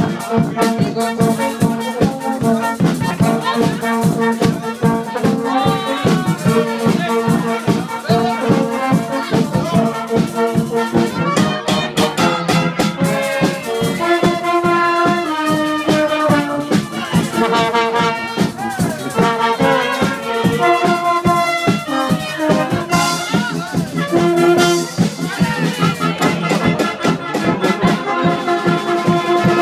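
Carnival brass band with sousaphone, trumpets and trombones playing loud up-tempo music over a steady beat.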